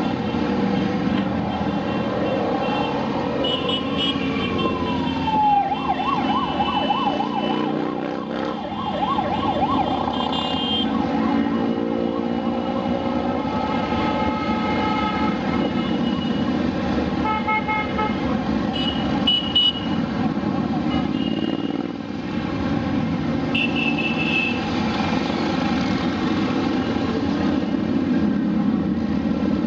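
Motorcycles in a parade column riding past one after another, their engines running continuously. A wail rises and then falls about two to six seconds in and wavers until about eight seconds, and a few short high-pitched tones sound at times.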